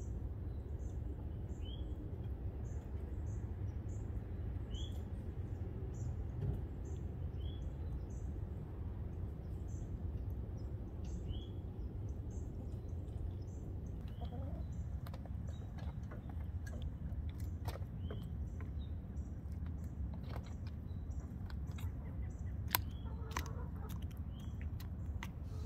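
Small birds chirping: a short high chirp repeated about twice a second, with a lower call every few seconds, over a steady low background rumble. From about halfway on, scattered sharp clicks and knocks join in.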